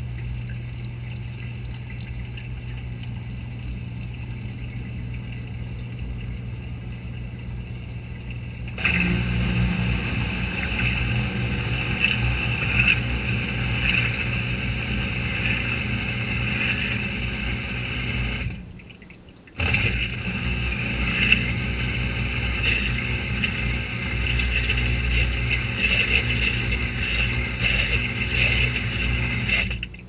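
Whirlpool WTW4900BW washing machine's drain pump running, pumping out the rinse water with a steady motor hum. About nine seconds in it turns louder and rougher. It cuts out for about a second past the middle, then runs on.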